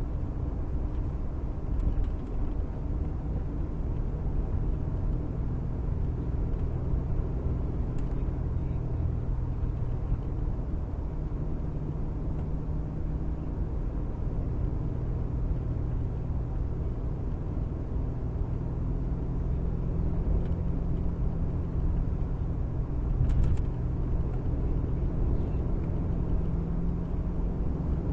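Steady road noise inside a moving car's cabin: a low rumble and drone from tyres and engine, with a few faint clicks.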